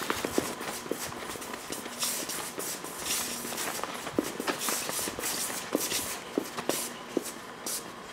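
Footsteps on a concrete floor with irregular clicks, knocks and rustling.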